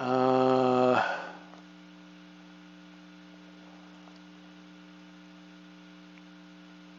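A man's low, closed-mouth "hmm" hum, held at one steady pitch for about a second and then fading, over a faint steady electrical hum.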